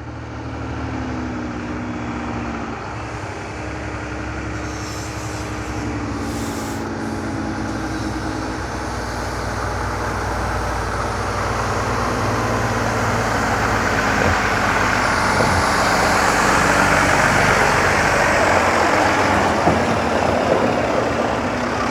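Concrete pump truck's diesel engine running as the truck drives up, growing steadily louder as it approaches.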